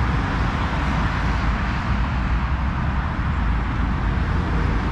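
Steady road traffic from the surrounding roundabout: a continuous low rumble with an even hiss over it and no single vehicle standing out.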